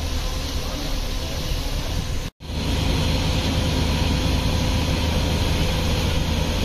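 Fire truck engines running steadily, a low hum with a wash of noise over it. The sound drops out for an instant about two and a half seconds in, then goes on a little louder.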